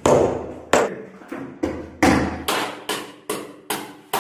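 Hammer blows on a plywood wall panel, about ten sharp strikes at two to three a second, each ringing on briefly in the bare room.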